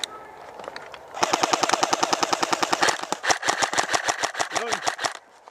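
Airsoft rifle firing full-auto: two long strings of rapid, evenly spaced shots starting about a second in, stopping about five seconds in.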